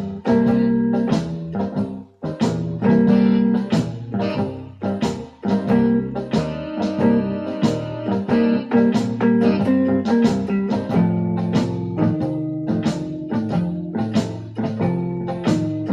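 Electronic keyboard playing a blues tune, held chords over a steady beat of about two strokes a second.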